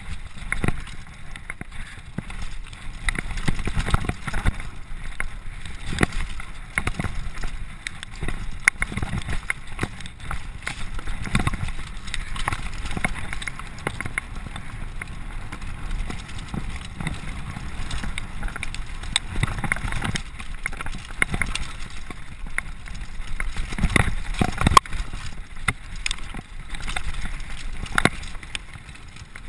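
Mountain bike descending a rough forest trail at speed: a constant uneven clatter of knocks and rattles from the bike over roots and rocks, with tyres on dirt and wind rushing over the microphone.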